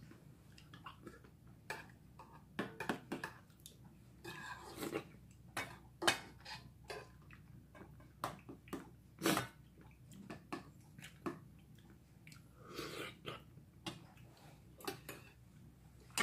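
A metal spoon and chopsticks clinking and tapping against stainless steel bowls, in scattered irregular clicks, with soft wet eating sounds between them.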